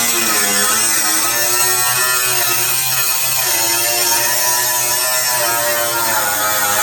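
Background music with a buzzy, wavering lead melody.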